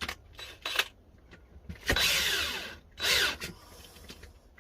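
Handling noise from wiring a light batten's terminals: a few sharp plastic clicks, then a loud scrape lasting about a second, followed by a shorter one.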